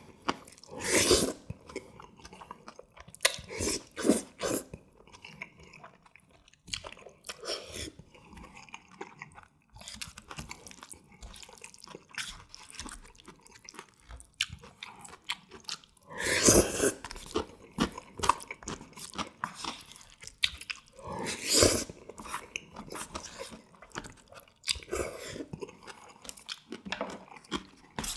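Close-miked eating of jjajangmyeon, black bean sauce noodles: steady chewing, broken by several loud slurps of noodles. The loudest slurp comes just past the middle, and another follows a few seconds later.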